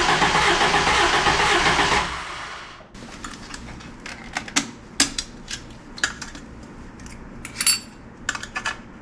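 1986 Isuzu P'up's engine being cranked by the starter without catching, stopping about two seconds in: a no-start that the owner puts down to a bad Weber 32/36 carburetor. Then scattered metallic clicks and clinks of parts being handled.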